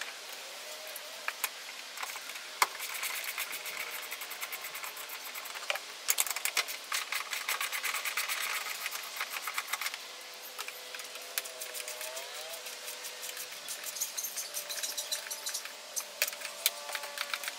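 Socket ratchet clicking in quick runs as the dashboard's mounting bolts are undone. There are three runs, the longest about four seconds, with single knocks of the tool in between.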